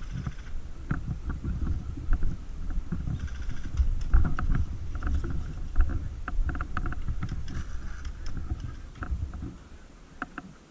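Rumble and rustle of a camera worn by a moving airsoft player, with many short sharp clicks and knocks. It dies down near the end.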